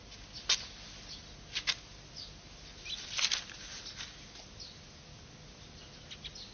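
Faint, scattered clicks and light taps as small objects are picked up and set down on a wooden desk, with a brief cluster about three seconds in. Soft rustling of cloth comes in between.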